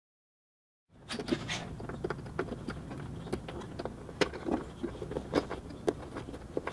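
Digital silence for about the first second, then scattered small clicks, rustles and scrapes over a low steady hum: handling noise as a wiring-harness lead is pushed through the rubber grommet in a car's firewall.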